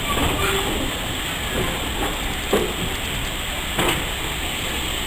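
Steam train in motion: a steady rumble and hiss, with two sharp knocks about two and a half and four seconds in.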